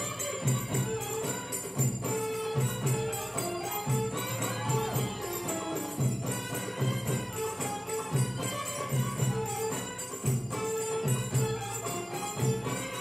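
Recorded Middle Eastern belly dance music with a steady, repeating drum beat and jingling percussion over a melody.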